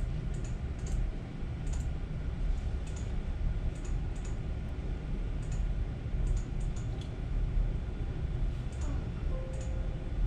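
Scattered light clicks of buttons and keys on a broadcast control-room desk, irregularly spaced, over a steady low hum.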